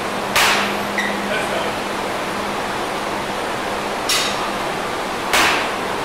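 Three sharp knocks from weight-training equipment being handled in the gym, about half a second in, about four seconds in and again a second later, over a steady hiss of room noise.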